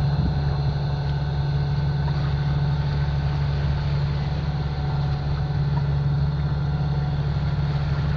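Contest 50 sailing yacht's inboard diesel engine running steadily under way, an even low drone that holds at one pitch.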